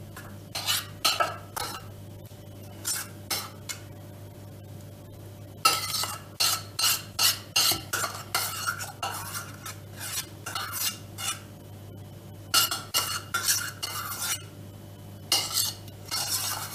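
Metal spoon scraping and clinking against a container while thick custard cream is spooned out onto a cake, in several short bursts of scraping and taps with pauses between. A faint steady hum runs underneath.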